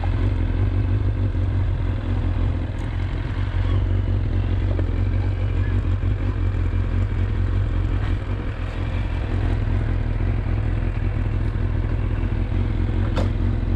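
Motorcycle engine running steadily at low speed as the bike rolls slowly over gravel, with a single sharp click near the end.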